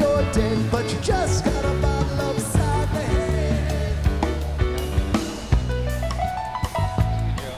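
Background rock song with drums and guitar, and a sung melody in places.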